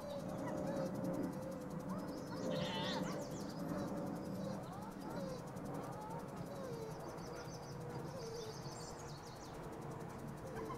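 Faint bleating from small livestock, a few short wavering calls, with brief high bird chirps late on.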